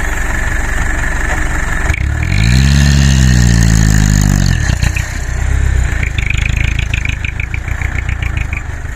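Mitsubishi Fuso Canter dump truck's diesel engine running, then revved hard under a load of soil for about two seconds from around two seconds in, its pitch rising and then falling back. A rapid, even ticking runs over the engine in the second half.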